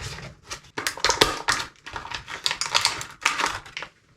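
Plastic packaging crackling and clicking as it is opened by hand, in quick irregular bursts.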